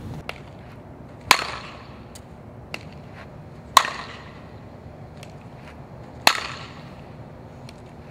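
Softball bat striking the ball three times, about two and a half seconds apart, each a sharp crack with a short ringing tail.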